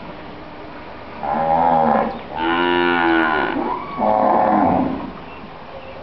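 Cattle mooing: three loud moos in quick succession, the middle one the longest.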